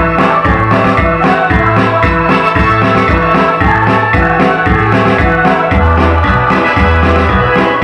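Electronic keyboard playing an organ-voiced accompaniment with a steady bass beat, under a women's choir singing.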